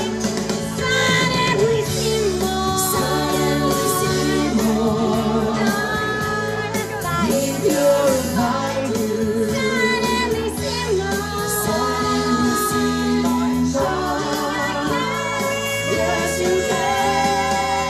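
A man and a woman singing a duet into microphones over a recorded backing track, karaoke-style, their voices alternating and overlapping.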